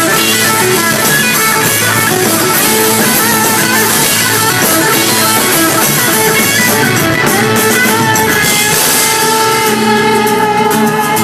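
Rock band playing live, an instrumental passage with electric guitar to the fore over bass and drums, without singing.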